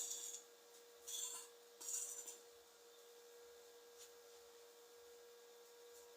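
Three short, faint scraping hisses in the first two and a half seconds, over a steady low electrical hum, then a couple of light ticks.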